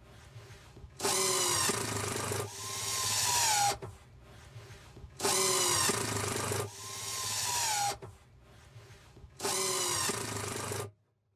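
Cordless impact driver running screws through a plastic drum into a wooden deck. It runs in three bursts of about two to three seconds each, and the motor whine drops in pitch as each screw bites.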